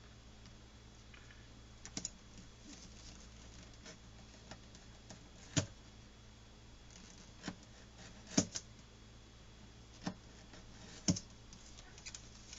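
Scattered light clicks and taps from hands handling small tools and leather on a work surface, about half a dozen spread unevenly, over a low steady hum.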